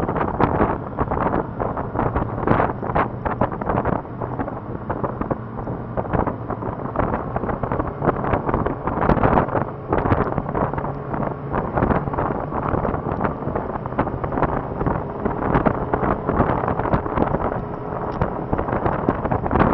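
Wind buffeting the microphone of a moving motorcycle, gusting irregularly over the steady low drone of the bike's engine at cruising speed.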